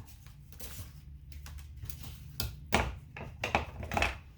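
Small tools and wire being handled at a workbench: a run of short clicks and knocks, several in the second half, over a low steady hum.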